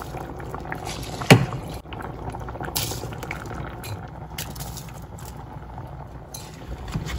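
Spiced stock at a boil in an open pressure cooker, bubbling steadily as basmati rice is dropped in by the handful. A single sharp click comes about a second and a half in.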